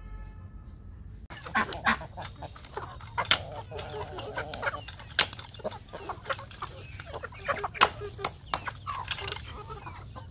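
A flock of chickens, ducks and geese calling around the feeder, with geese honking, over a quick, uneven run of sharp clicks and taps. It starts about a second in.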